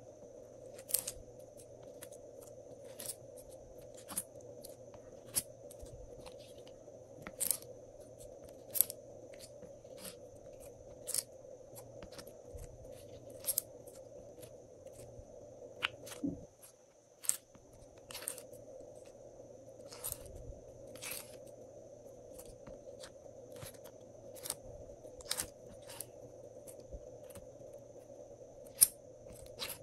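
Glossy slime being scraped and pulled out of a plastic tray, giving irregular sharp sticky clicks and pops about once a second over a steady low hum. The loudest pop comes near the end.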